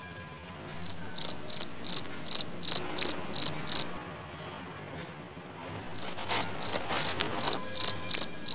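Cricket chirping sound effect: evenly spaced high chirps, about three a second, in two runs of about three seconds with a pause between.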